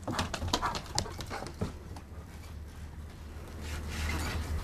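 Dogs playing and running about, with a handful of sharp clicks and taps in the first two seconds over a low steady rumble.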